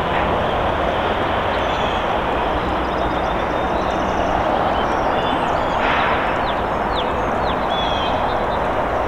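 Diesel freight locomotive CN 3117 approaching slowly with its train, a steady engine rumble under an even wash of noise. A few short high chirps sound around six to seven seconds in.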